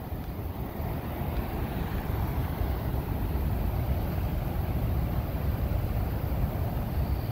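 Steady roar of water pouring over Horseshoe Falls, with wind buffeting the microphone in a deep flickering rumble.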